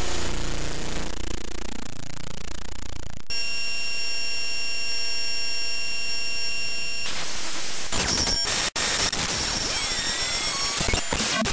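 Raw binary data of the Audacity program file (audacity.exe) played back as audio: harsh static and buzz that switches abruptly, about three seconds in, to a steady chord of high tones. After about seven seconds it turns back to static, cuts out for an instant, then sputters with gliding tones.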